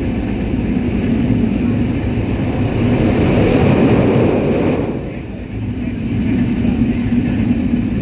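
Train running along the track with a steady rumble and hum. A louder rushing swell builds from about three seconds in and drops away suddenly about five seconds in.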